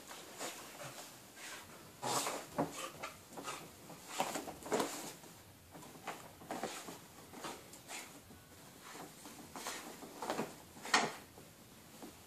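A pregnant Spanish Water Dog digging and scratching at blankets in a wooden whelping box: irregular rustling and scratching of claws on cloth, with a sharp knock near the end. This is nesting, the bed-making a bitch does as whelping approaches.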